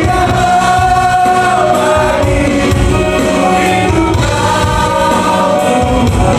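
Christian worship song: a group of voices singing held melody lines over a full instrumental backing.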